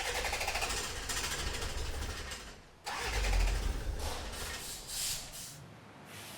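Car engine cranking on its starter for nearly three seconds, then catching with a sudden deep rumble that is the loudest part, and settling as it runs on.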